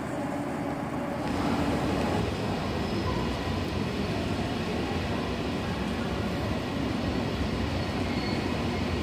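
A train moving along the track, a steady running noise that gets louder about a second in and then holds.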